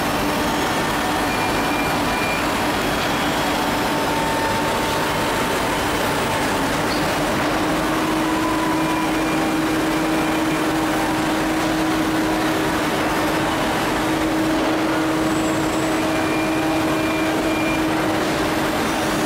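HOMAG BMG 512 five-axis CNC machining centre running: a steady machine noise with a held tone that steps slightly higher about eight seconds in.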